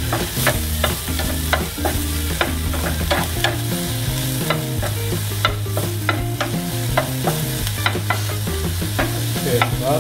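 Crab meat and minced ginger sizzling in hot oil in a nonstick frying pan, stirred with a wooden spatula that clicks and scrapes against the pan over and over.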